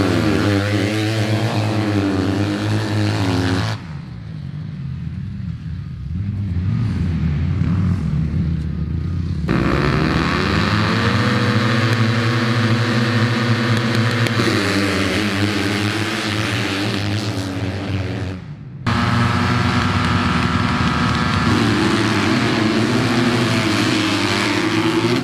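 Several Yamaha motocross bikes running at high revs at the starting gate and launching off the start together. The sound changes abruptly about 4 s, 9½ s and 19 s in, with a quieter stretch between 4 and 9½ s.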